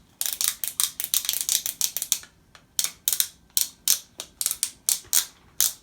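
Plastic Lego pieces being clicked and pressed together by hand: a run of quick, irregular plastic clicks, with a short pause a little after two seconds in.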